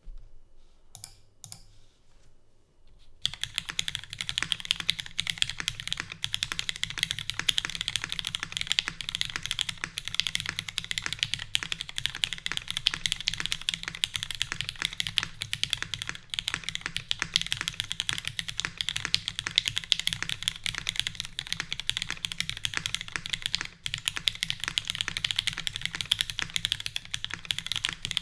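Typing on a Keycult No.2 custom mechanical keyboard with lubed, filmed retooled Cherry MX Black linear switches, a full aluminium plate and GMK keycaps. A few separate keystrokes come first, then fast, continuous typing from about three seconds in.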